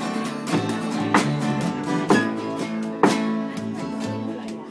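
Two acoustic guitars strumming slow chords, with a strong stroke about once a second, and a washboard played along for rhythm.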